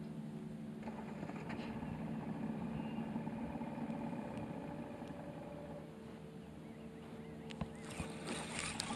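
Boat engine idling at a distance, faint, its pitch shifting about a second in and again near the end. A few sharp clicks and rattles of a spinning reel being handled come in the last second or two.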